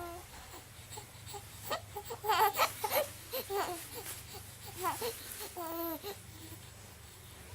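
A two-and-a-half-month-old baby fussing: a string of short, wavering cries and whimpers with pauses between them.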